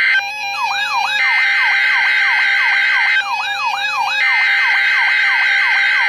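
NOAA Weather Radio SAME header: a harsh two-tone digital data screech in bursts about two seconds long, separated by one-second gaps. Over it a Midland weather alert radio sounds its own siren-like alarm, sweeping up and down about three times a second and heard plainly in the gaps. This is the receiver being set off by a Required Weekly Test.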